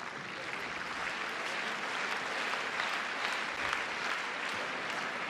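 Arena crowd applauding, many hands clapping, swelling about a second in and holding steady.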